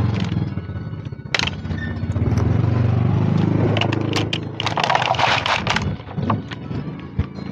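A motor vehicle's engine running as a steady low hum that fades and swells. Clicks, then a loud crackling rustle about five seconds in, as the cat pushes at its thin plastic food tray and lid.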